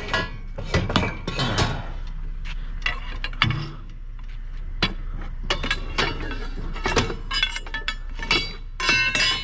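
Pieces of scrap metal clanking and clinking together as they are handled and loaded onto a scrap load: a series of sharp metallic knocks, some with a short ringing tail, busiest as a quick cluster near the end.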